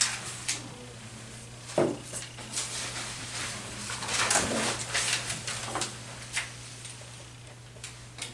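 Sheets of paper rustling as they are handled, the rustling strongest in the middle, with a few light clicks and knocks near the start and end over a steady low hum.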